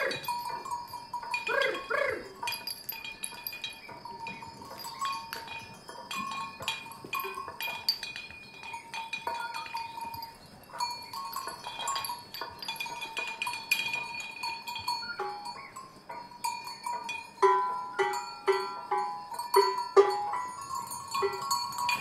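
Small terracotta flowerpots hanging on strings, knocking together and against the floor with hollow, bell-like clinks that ring on. A quicker run of louder strikes comes near the end.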